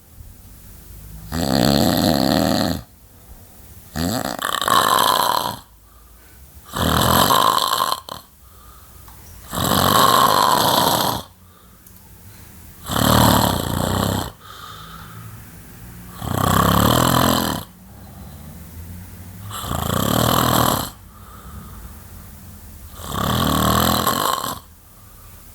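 A man snoring heavily in his sleep: about eight loud snores, each a second or two long and coming about every three seconds, with quieter breaths between them.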